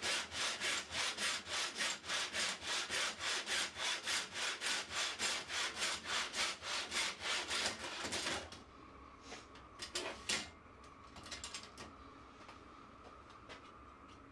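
Hand saw cutting through wood in quick, even strokes, about three a second, which stop about eight and a half seconds in. A few light clicks and knocks follow.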